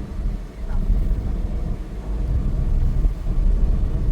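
Low, uneven rumble of a moving vehicle.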